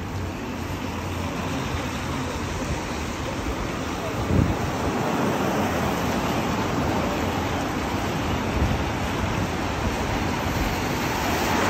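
City traffic on wet streets in light rain: a steady hiss of tyres on wet road, with a dull thump about four seconds in and a vehicle swishing past near the end.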